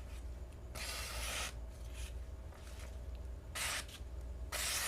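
Lansky X-9 Responder flipper knife slicing through paper with its razor-sharp factory edge. Three slicing strokes: a longer one about a second in, then two short ones near the end.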